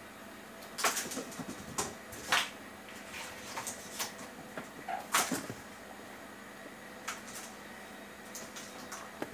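Cat playing with a string toy on a hard wooden floor: irregular light knocks, clicks and rustles as the toy and its string drag and tap across the boards, the sharpest about one, two and a half and five seconds in.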